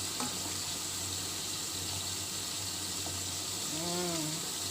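Steady hiss of a pot of water heating on the stove, not yet at the boil, over a constant low hum. A short hummed voice sound comes about four seconds in.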